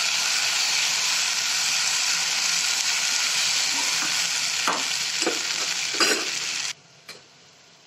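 Potato strips, capsicum and onion sizzling in a sauce-and-honey glaze in a kadai while a steel spatula stirs them, with a few scrapes of the spatula on the pan. The sizzle cuts off suddenly about a second before the end.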